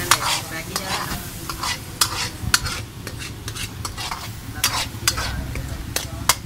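Steel ladle scraping and knocking against an iron wok as minced meat is stirred, with the meat frying in oil and sizzling steadily underneath. The ladle strokes come unevenly, about one or two a second.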